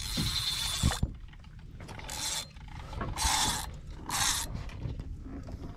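Sea-fishing reel rasping in four short bursts as a tope is played on rod and line. The first burst lasts about a second.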